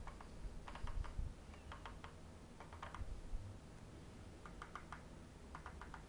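The controls of a handheld Autec industrial crane radio remote transmitter clicking as they are worked by hand: short clusters of three or four sharp clicks, about six clusters, over low handling rumble.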